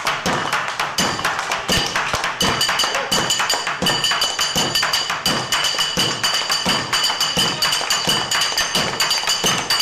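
Music with fast, even percussion: sharp taps at about five or six a second over lower thuds, with a few steady high tones joining about a second in.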